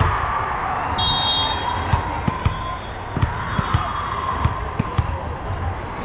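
A volleyball bouncing on a hardwood gym floor, several short thuds, as a server dribbles it before serving, over the echoing chatter of a large gym hall. A brief high squeak sounds about a second in.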